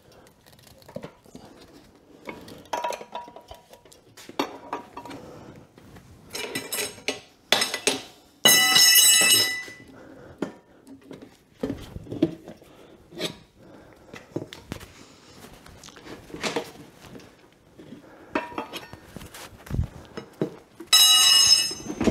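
Steel tire irons clinking, scraping and knocking against a dirt bike's wheel rim while a tubeless tire is levered. There are two loud ringing metal clanks, about eight seconds in and again near the end.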